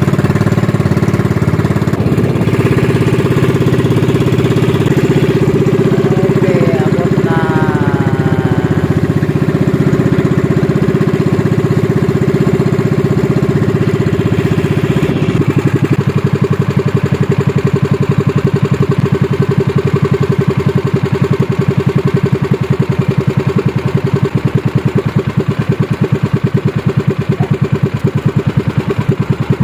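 Outrigger fishing boat's engine running steadily under way. About halfway through its sound changes, settling into a more distinct, pulsing beat.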